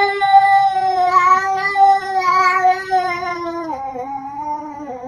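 Domestic cat giving one long, drawn-out yowl that steps down in pitch about two-thirds of the way through.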